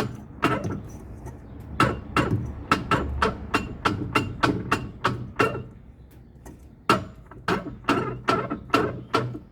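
Repeated sharp clicks and knocks, about three a second with a short pause partway through, from the Electrolux LTE09 washing machine's agitation mechanism as it is worked. This is the noise that makes the machine grind during agitation, which the technician puts down to a faulty ratchet bearing inside the mechanism.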